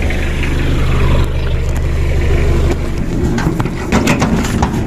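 Small pickup truck's engine idling steadily, then knocks and clatter about three seconds in as someone climbs up into its metal cargo bed.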